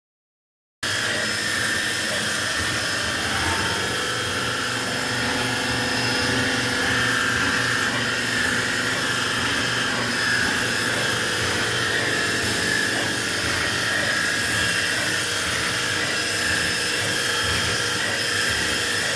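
CNC lining drawing and cutting machine running, its spindle giving a steady whine over a constant hiss that cuts in abruptly about a second in.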